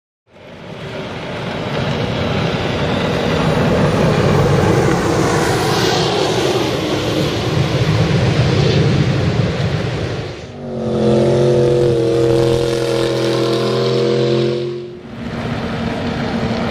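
River jet boat running at speed, its engine at high revs over a loud rush of noise. About ten seconds in, a steady engine note rises clearly above the rush, holds for about four seconds, then drops away suddenly.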